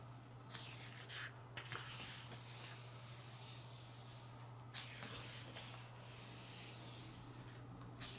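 Faint paper rustling and sliding as pages of a photobook are handled and turned, with soft strokes between about half a second and two seconds in and again near five seconds. A steady low hum sits underneath.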